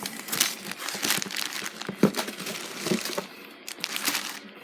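Small plastic jewelry baggies crinkling and rustling as they are pulled out and handled, with irregular sharp crackles.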